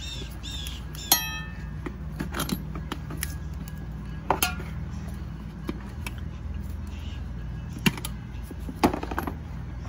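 Metal clinks and scrapes of a screwdriver used as a tire lever against a spoked motorcycle wheel rim as the tire bead is worked over the rim lock. Several sharp clicks are spread through, the one about a second in ringing briefly, over a steady low hum.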